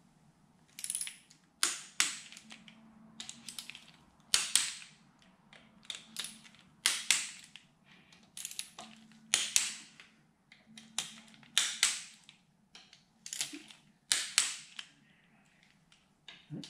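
Click-type torque wrench snapping over as the clutch cover bolts reach 10 newton metres: a series of sharp clicks, roughly one a second.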